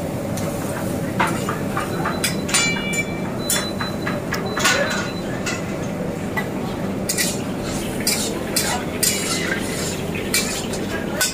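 A metal ladle clinks and scrapes against steel karahi woks as curry is stirred, with scattered sharp strikes, a few of them ringing briefly. Underneath runs the steady rushing of the open gas burners under the woks.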